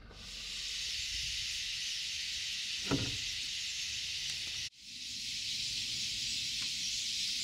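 A huge flock of red-billed quelea chattering: a dense, even wash of high chirping with no single call standing out. A single dull knock comes about three seconds in. The din breaks off abruptly about halfway through and then resumes.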